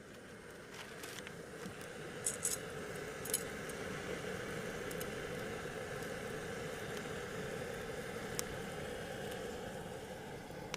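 Metal camp cookware clinking a few times, most of them in the first few seconds, over a steady hiss from the campfire cooking.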